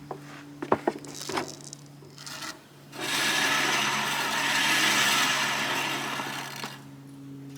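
A few sharp knocks, then about four seconds of steady rasping, scraping noise against wood, over a low steady hum.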